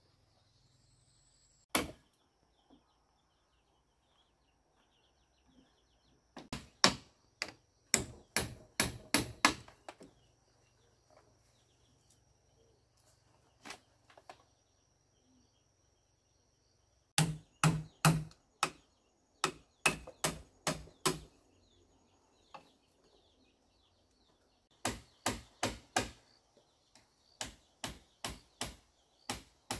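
Blows of a hand tool on bamboo during building work, sharp strikes in quick runs of about three a second with pauses between.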